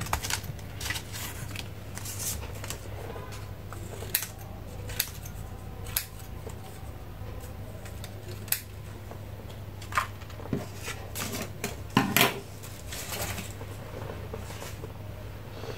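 Scissors cutting through a folded stack of colored A4 paper, cutting out circles along a drawn template. The snips are irregular, about a second apart, with a louder cluster about twelve seconds in.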